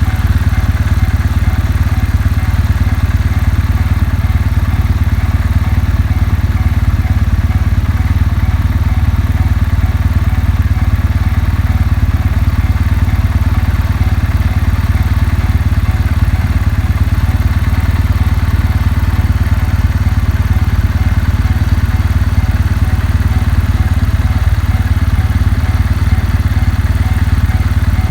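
Kawasaki W650's air-cooled parallel-twin engine idling steadily. Over it, a railway crossing alarm rings in an even, repeating pattern.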